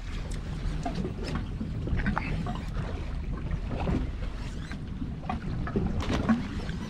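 Steady wind and water noise around a small fishing boat drifting offshore, a low rumble with scattered light knocks and clicks.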